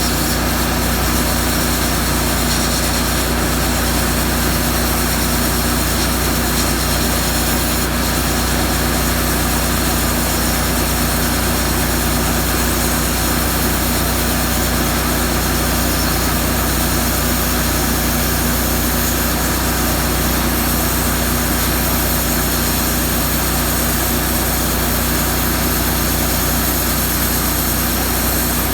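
Miller Trailblazer 325 engine-driven welder-generator running steadily at raised speed under the load of a plasma cutter and air compressor, with a steady hiss over the engine hum.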